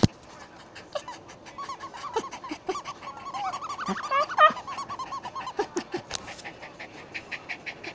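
Small dog chewing a squeaky toy, setting off a rapid run of short, high squeaks and clicks, several a second.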